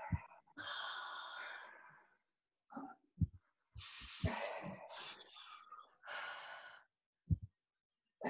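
A man breathing heavily, with long noisy breaths in and out, as he strains against a mobility ball pressed under his shoulder blade. There are a few soft low thuds between the breaths.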